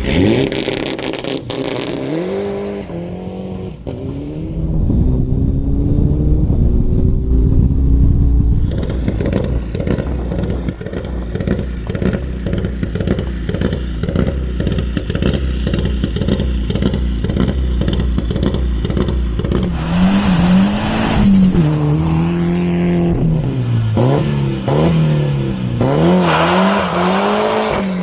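Rally car engine accelerating hard, its note climbing through several gear changes, then running at full load with a heavy rumble and rapid crackle. In the last several seconds the revs rise and fall again and again with throttle blips.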